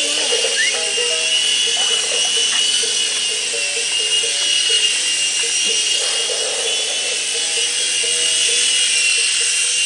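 Micro RC helicopter in flight: its small electric motors and rotors give a steady high-pitched whine.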